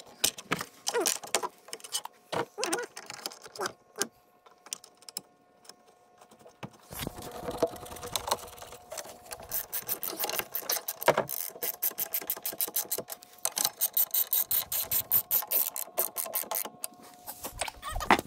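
A hand ratchet clicking in quick, rapid runs as it drives the screws that fasten a door handle to a glass door, with a few scattered clicks and handling knocks in the first few seconds.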